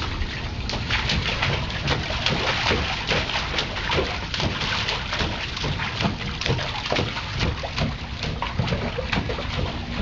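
Water splashing and sloshing as a child plays in it, a steady run of small splashes.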